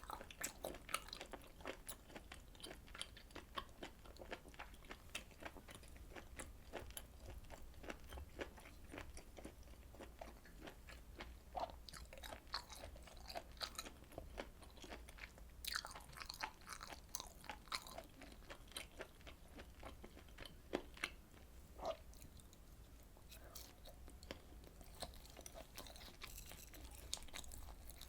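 Eating sounds: chewing grilled beef and pork intestines, a steady run of many short clicks and smacks, with a few louder ones about 16 and 21 seconds in.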